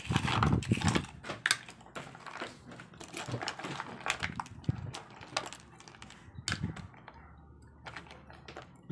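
Shells of mussels, cockles and small sea snails clicking and clattering against one another as a hand rummages and sorts through a basin full of them. The clicks come in an irregular run, busiest in the first couple of seconds and sparser near the end.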